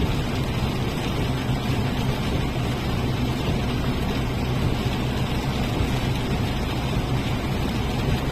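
Steady engine drone with a low hum under an even rushing noise, holding constant throughout.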